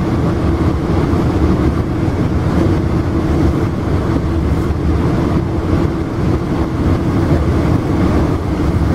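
Steady rumble of a Tri-Rail commuter train heard from inside a passenger coach while it moves along the line.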